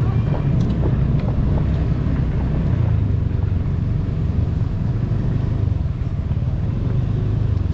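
Motorcycle engine running while riding, with wind buffeting the camera microphone as a steady low rumble.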